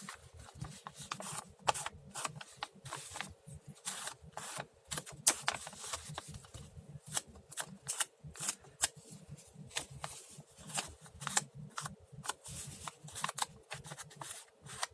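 Quick, irregular scratchy strokes of an ink pad swiped along the edges of a paper piece, darkening them.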